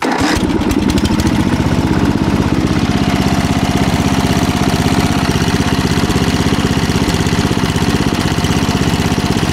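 Ford R12 lawn tractor's 12-horsepower Briggs & Stratton engine starting at the turn of the key, catching at once, then running steadily with a fast, even firing beat; it runs well.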